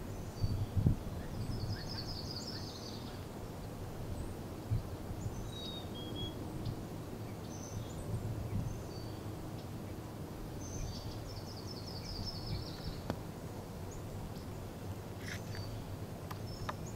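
Small birds chirping and singing over a steady low outdoor rumble, with two longer trilled phrases, one about two seconds in and one about eleven seconds in.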